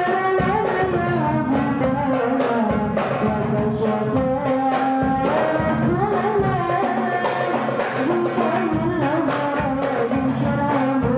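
Hadroh music: voices singing sholawat in a melismatic, Arabic-style melody over a steady beat of rebana frame drums.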